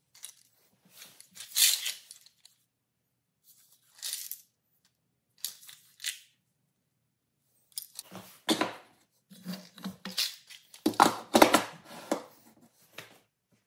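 Plywood storage boxes being handled: a string of brief scrapes and knocks of wood on wood, set apart by dead silent gaps, busiest and loudest in the second half.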